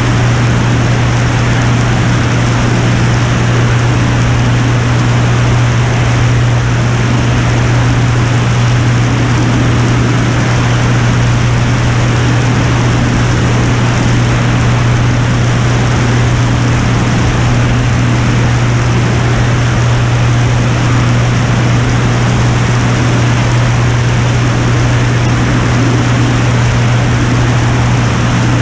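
Piper Turbo Saratoga's turbocharged six-cylinder piston engine and propeller droning steadily in level cruise, a strong low hum under a heavy, even rush of air noise.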